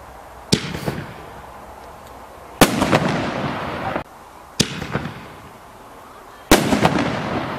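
Two firework canister shells going off in turn. Each launches from its mortar tube with a sharp thump, then about two seconds later bursts with a louder bang, followed by more than a second of dense crackling and fizzing from strobe stars.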